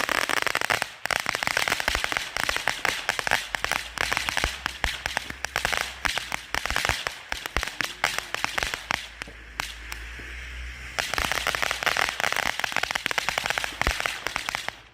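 Crackling firework fountain (volcano) burning: a steady hiss of sparks with dense, rapid crackling pops. It dips briefly about a second in and turns quieter and less crackly around ten seconds, then builds again and stops abruptly near the end.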